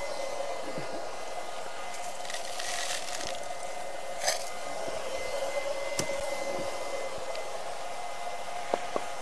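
Steady whirr of the smoking cabinet's smoke-generator blower fan, with a few faint scrapes and sharp clicks from handling at the smoker.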